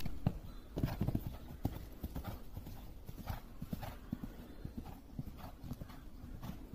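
Horse cantering on a sand arena, its hooves thudding in an uneven, rolling rhythm of a few beats a second, with a sharp knock right at the start.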